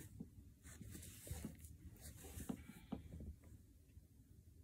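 Near silence: quiet room tone with faint, scattered light taps and rustles.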